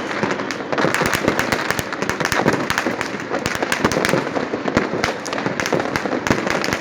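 Many fireworks and firecrackers going off at once, a dense, near-continuous crackle of overlapping pops and bangs with no break.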